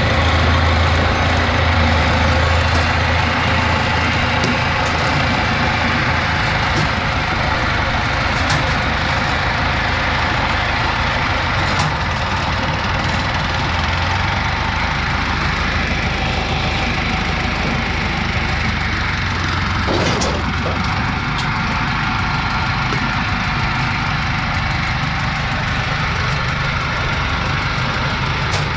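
Engine of a homemade tracked rice-hauling carrier running steadily as the machine crawls up steel ramps onto a trailer, with a few sharp metallic clanks.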